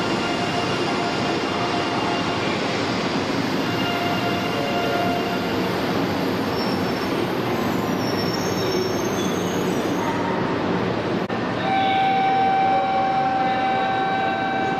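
E2 series Shinkansen standing at a station platform: a steady wash of train and platform noise. Near the end a steady pitched tone starts and holds.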